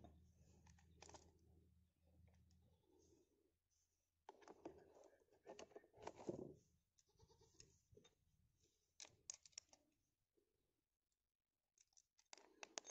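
Faint clicks and plastic clatter as a chainsaw attachment's D-handle is handled and fitted onto an angle grinder.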